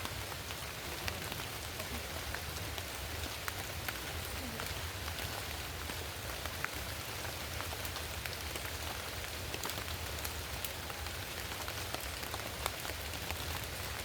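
Steady rain falling, with many single drops ticking sharply through the patter.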